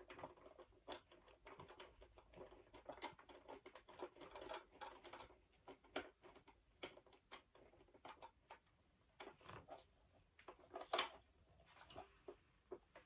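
Faint, irregular small clicks and scrapes of plastic parts and a screwdriver as the head is worked off an animatronic Santa toy, with one slightly louder click near the end.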